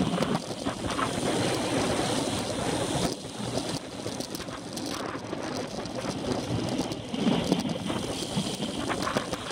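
Steady wind rushing over the microphone of a camera mounted on a road bike's handlebars while riding at race pace.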